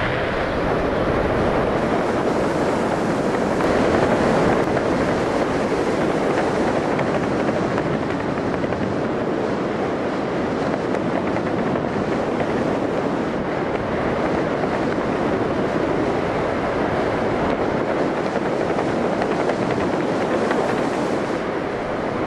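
Steady wind rushing over a helmet-mounted camera's microphone as a skydiver glides under an open parachute canopy.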